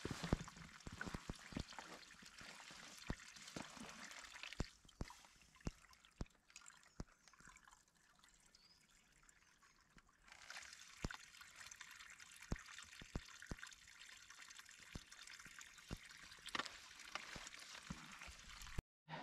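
Faint trickle of a small mountain spring running over stones while a water bottle is held in it to fill. The trickle drops away for several seconds midway and comes back, with scattered light clicks and knocks throughout.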